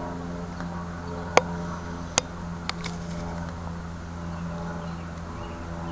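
Utility knife blade scoring pattern lines into a wooden walking stick: three sharp clicks in the first half, the first the loudest, over a steady low hum.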